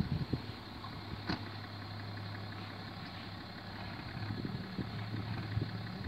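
Vehicle engine idling steadily with a low even hum, and a single short knock about a second in.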